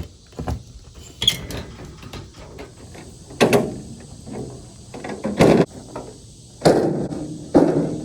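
An irregular series of heavy clunks and bangs with a short ring after each, the loudest ones coming in the second half about a second or two apart.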